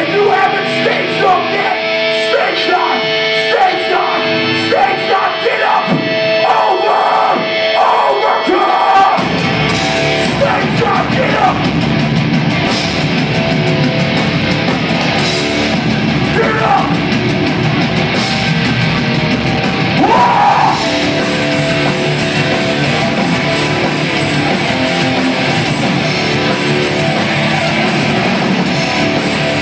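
Hardcore punk band playing live in a concert hall: guitars alone carry a riff for about the first nine seconds, then bass and drums crash in and the full band plays on, with a few shouted vocals.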